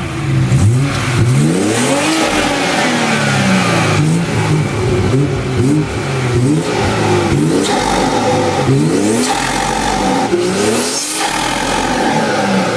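BMW 340i's turbocharged 3.0-litre B58 inline-six being revved repeatedly while parked, the pitch rising and falling about once a second. It runs with a freshly fitted Agency Power cold air intake, a muffler delete and a catless downpipe.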